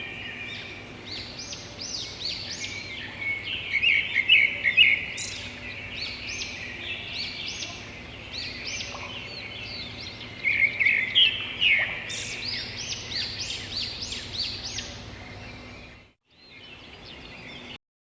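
Several small songbirds chirping and singing in quick, high notes, many of them short downward sweeps, with louder flurries about four and eleven seconds in. Near the end the sound cuts out briefly, returns, then stops.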